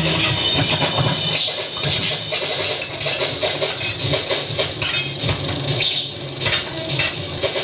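Film projector running close by: a steady mechanical clatter and rattle.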